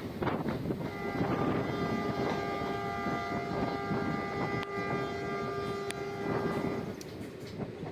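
Locomotive air horn sounding one long, steady multi-tone blast of about six seconds, over the rumble of the moving train and wind on the microphone.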